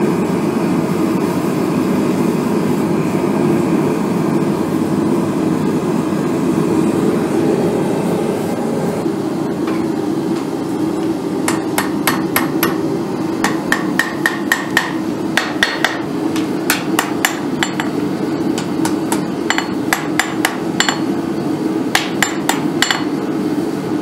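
Hand hammer striking the glowing end of a sword tang on a Cavalry anvil, bending it, in quick runs of several blows a second with a ringing note, starting about halfway through. A steady low rushing noise runs underneath, louder before the hammering starts.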